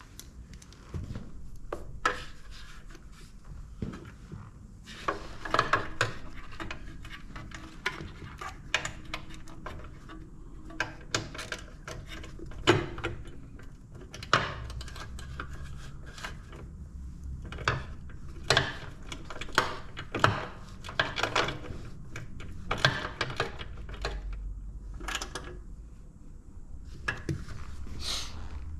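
Hand tools and small metal hardware clinking and clicking irregularly, with a few sharper knocks among them, as a turn-signal mount is worked on.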